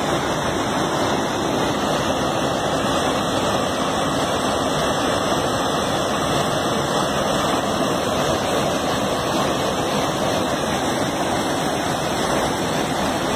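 Floodwater rushing across a flooded low-water street crossing: a steady, even rush of water.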